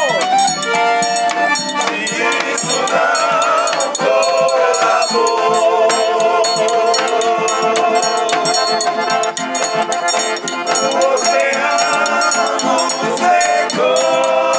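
Live acoustic guitar and piano accordion playing a song while several men sing together, the accordion holding steady notes under the wavering voices.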